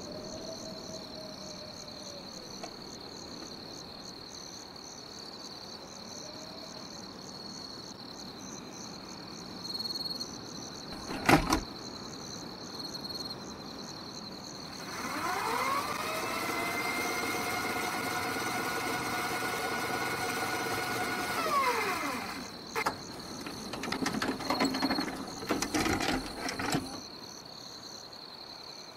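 Crickets chirping steadily in the background. About eleven seconds in a sharp click, the loudest sound, then a video cassette recorder's tape motor whining up in pitch, holding for about six seconds and winding down, followed by a run of mechanical clicks and clunks.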